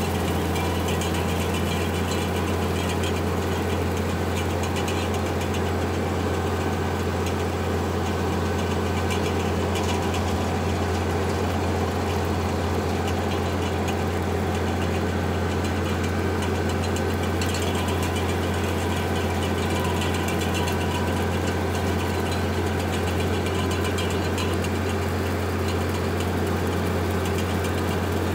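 International Harvester 1066 tractor's six-cylinder diesel engine running steadily while mowing, with a deep even drone and no change in pitch.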